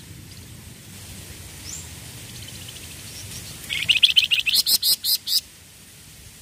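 A caged flamboyan songbird singing: a few faint high chirps, then about four seconds in a loud, rapid run of sharp notes lasting under two seconds.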